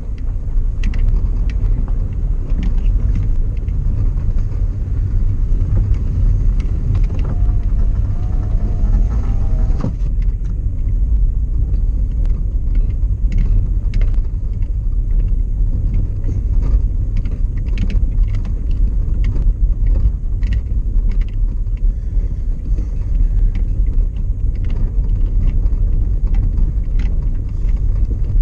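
A car being driven, heard from inside the cabin: a steady low engine and road rumble with frequent small clicks and knocks.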